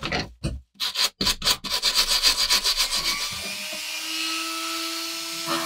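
Quick rubbing or scraping strokes that speed up into a rapid run, then a handheld rotary tool with a small abrasive wheel running steadily at high speed from about three and a half seconds in.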